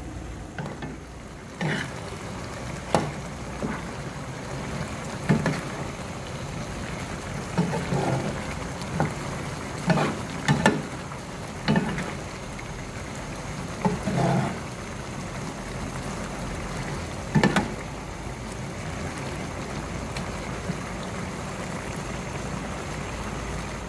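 Thick Padang chili-tomato sauce with baby squid simmering hard in a frying pan, giving a steady bubbling hiss. A metal spatula stirs through it, knocking and scraping against the pan at irregular moments, about ten times.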